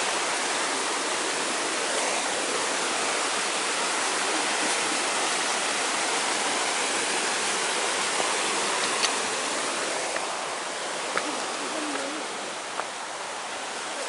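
Mountain stream rushing over rocks: a steady, full rush of water that grows somewhat fainter after about ten seconds, with a few light clicks on top.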